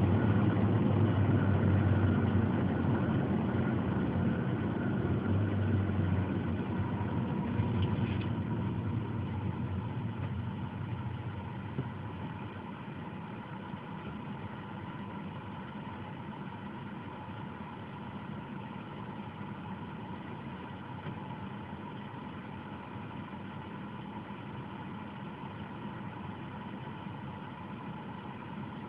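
Suzuki Swift Sport's 1.6-litre four-cylinder engine, breathing through a homemade open dual-funnel air filter, heard from inside the cabin. It runs under way and dies down over the first ten seconds or so as the car slows, then idles steadily once the car is stopped.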